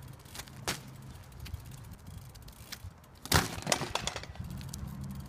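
A mountain bike crashing onto asphalt in a failed barspin: a single sharp knock about a second in, then a burst of loud clattering knocks about three seconds in as the bike hits the ground.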